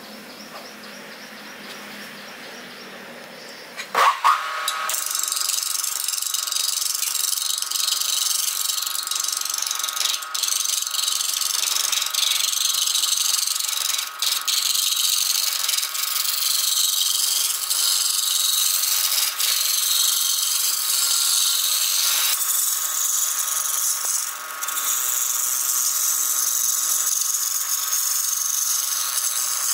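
Wood lathe spinning a wooden blank while a gouge rough-turns it: a steady, loud, high-pitched scraping hiss of the cut over the lathe's running hum. It begins abruptly with a few loud knocks about four seconds in, after a quieter stretch, and dips briefly a few times.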